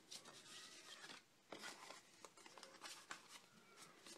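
Faint rustling and creasing of white cardstock being folded and handled by hand along its score lines, with a few soft clicks.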